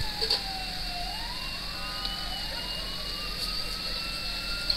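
An emergency vehicle's siren wailing, its pitch sliding down and then slowly climbing back up.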